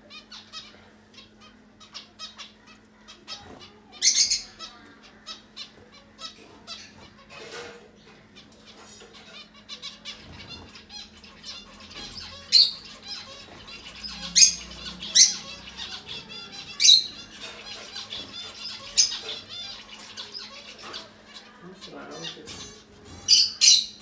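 Small finches calling: many short, high chirps, with louder clusters about four seconds in, through the middle, and near the end, over a steady low hum.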